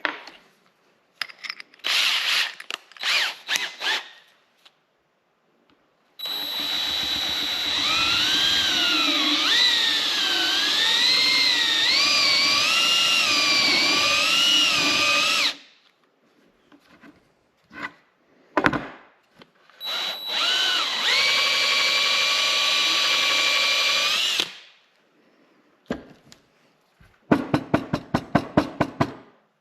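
DeWalt SDS Plus rotary hammer drill running in two long runs, after a few short bursts. Its motor whine wavers up and down under load in the first run and holds steady in the second. A quick series of clicks comes near the end.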